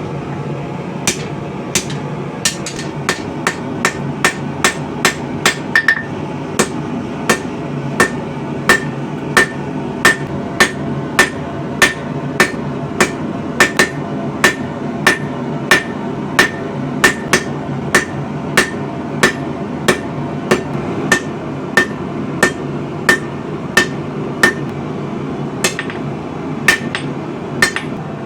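Hand hammer striking hot spring steel on an anvil while forging a blade: a long run of sharp blows, about one and a half to two a second, many with a short high ring. A steady low rushing noise runs underneath.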